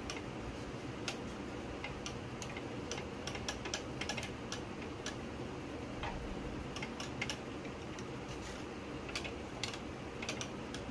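Irregular light clicks and taps of monitor parts being handled and fitted: the LCD panel and backlight sheets being seated in the monitor's sheet-metal frame. A steady hum runs underneath.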